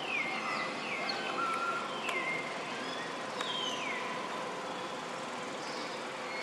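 Outdoor ambience: a steady insect-like drone with a string of short whistled animal calls, each sliding down in pitch.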